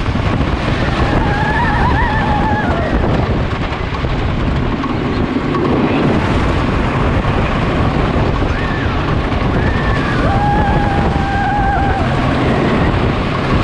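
Lightning Racer wooden roller coaster train running at speed through curves: a loud, steady rumble of its wheels on the wooden track, with wind buffeting the on-board microphone. Two drawn-out high-pitched squeals rise over it, about a second in and again around ten seconds in.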